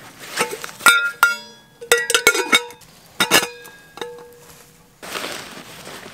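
Stainless steel cooking pot clinking as it is handled: a quick, uneven string of sharp metal clinks, each ringing briefly, then rustling from about five seconds in.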